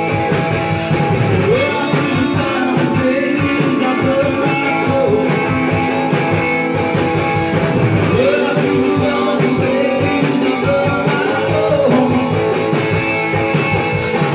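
Live rock band playing loud: distorted electric guitar over a drum kit, with sustained, bending guitar or vocal lines now and then.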